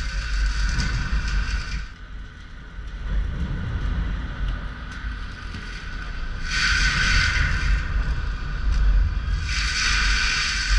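CAT 299D3 compact track loader's diesel engine running under work, a steady deep rumble. A high whine over it drops away about two seconds in, returns briefly in the middle and comes back near the end.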